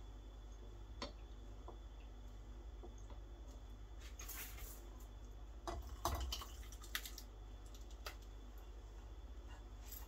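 Faint clinks and knocks of stainless-steel saucepans and a stirring spoon. About six seconds in comes the loudest cluster of knocks, with liquid splashing as one pan is poured into the other. A low steady hum runs underneath.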